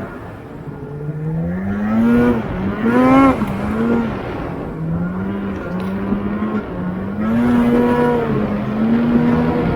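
Snowmobile engine running under way, its pitch climbing and easing off several times as the throttle is opened and let off, with a sharper rise about three seconds in.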